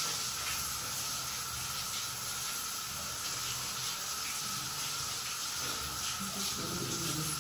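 Steady hiss of background noise.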